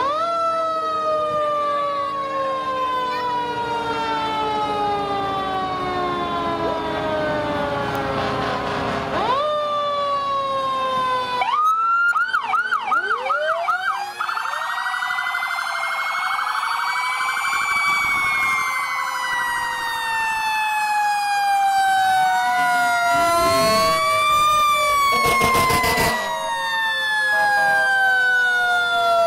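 Sirens from several fire trucks sounding at once: long wails that slowly fall in pitch and then sweep back up, with a burst of fast yelp about 12 seconds in and a short noisy blast near the end.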